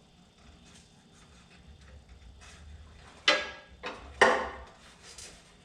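Parts being handled during disassembly: scattered light clicks and rattles, then two loud clunks a little past halfway with a smaller knock between them.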